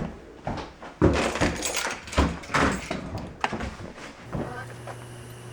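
A quick series of knocks, bangs and clatter, like doors and gear being handled. About four and a half seconds in, a steady low hum starts.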